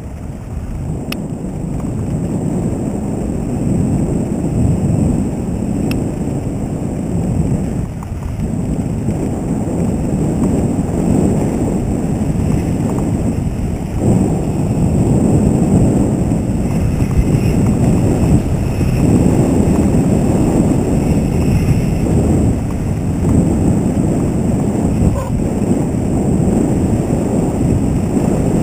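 Wind buffeting the microphone and mountain-bike tyres rumbling over a dirt trail during a fast ride, a loud, steady low rumble that grows louder over the first half.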